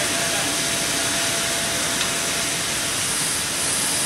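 Steady hiss of steam venting from the open cylinder drain cocks of a triple-expansion marine steam engine being warmed through, steam bled through the cylinders to drive off condensate.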